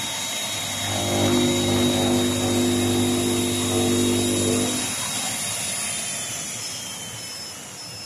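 CNC digital cutting machine running as it cuts through two layers of cardboard: a steady high whine, with a lower pitched machine drone that comes in about a second in and drops away just before the five-second mark.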